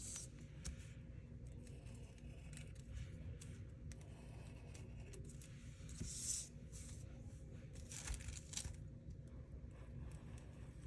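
Faint scratchy rustling of a black permanent marker drawing along paper and the sheet being shifted on a countertop, over a steady low room hum. The loudest scrapes come about six seconds in and again around eight to nine seconds.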